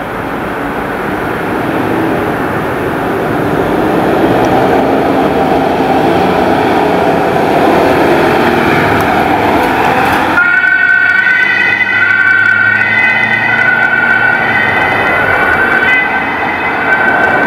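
Ambulance pulling away with its engine and road noise. About ten seconds in, a German two-tone siren (Martinshorn) sounds, alternating steadily between a high note and a low note.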